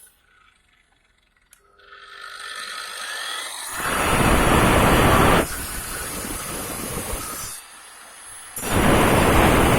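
Dnipro-M MShK 2300P angle grinder switched on with a click, its soft start bringing it up to speed over about two seconds. It then cuts into brick with a diamond disc in two loud bouts, running freely at a lower level between them.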